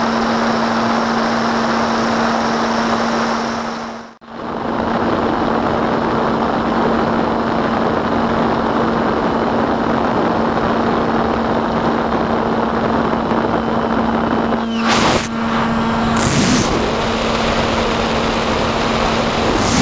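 Onboard sound of a SkyHunter model plane's electric pusher motor and propeller running steadily at cruise: a constant hum under rushing wind noise. The sound cuts out briefly about four seconds in, and there are two short whooshes near the end.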